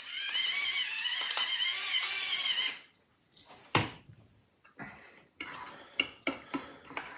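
Electric pepper mill grinding with a steady, wavering whine that cuts off about three seconds in. The mill is then set down on the counter with a knock, followed by a metal spoon clinking and scraping in a stainless steel mixing bowl during stirring.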